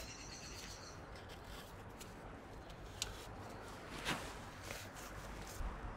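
Faint clicks and light taps as rubber caps are pulled out of the spark plug holes on a car engine's cam cover, with the strongest click a little after four seconds in. A brief high chirp sounds in the first second.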